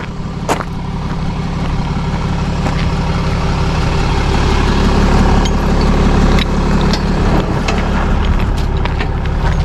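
Ram pickup truck engine running steadily, growing a little louder through the first half, with a sharp click about half a second in and a few faint ticks.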